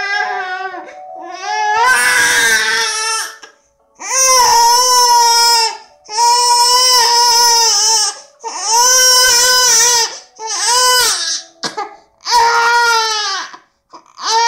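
A 19-week-old baby crying in a string of long, high wails, about seven of them, with short breaths between, while straining to roll over.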